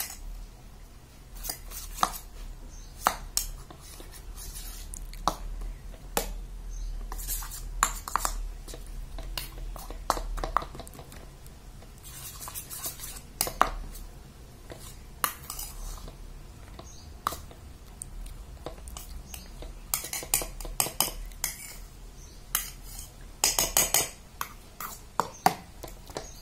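A metal spoon stirring a milk mixture in a stainless steel bowl, clinking and scraping against the sides at irregular intervals, with a few bursts of quicker clinking.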